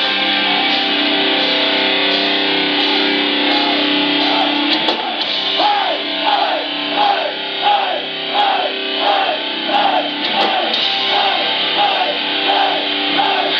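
A hardcore punk band playing live, heard loud through a phone microphone in the crowd, with distorted electric guitar at the front. It opens on held, ringing chords, then from about four seconds in the guitar plays a repeating riff of short, bending notes about twice a second.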